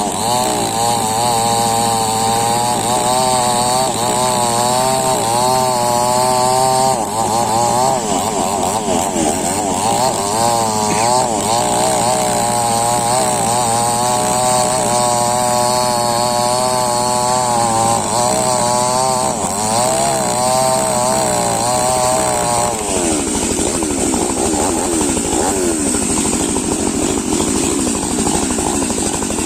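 Chainsaw running continuously, its engine pitch wavering up and down. About three-quarters of the way through, the sound changes and becomes rougher and less even in pitch.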